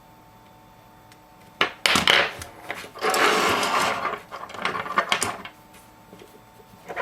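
Small hand tools being handled during an iPhone 5 teardown: a few sharp clicks, then a second of scraping and rubbing, then scattered light clicks.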